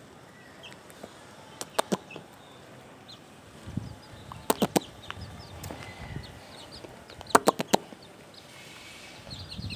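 Chickens clucking, with sharp taps in quick clusters of three or four, about every three seconds, and short high calls in between.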